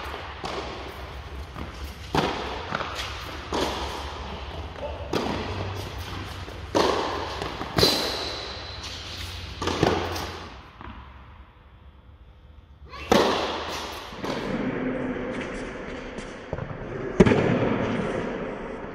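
Tennis balls hit back and forth in a rally on an indoor court, every one to two seconds. Each racket strike and bounce echoes in the large hall. There is a brief high squeak about eight seconds in, and a short lull before play picks up again with hard hits.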